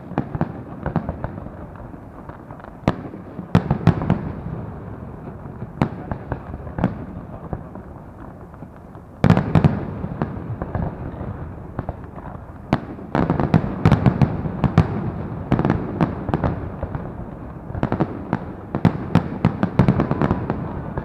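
Fireworks going off: a dense run of sharp bangs over constant crackling. A heavier barrage starts suddenly about nine seconds in, and more clusters of loud bangs follow in the second half.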